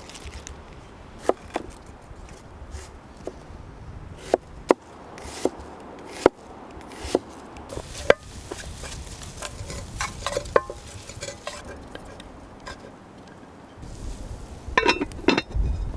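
Knife work on a wooden cutting board: scattered sharp knocks and clicks at an irregular pace, with a denser, louder cluster of knocks and rustling near the end.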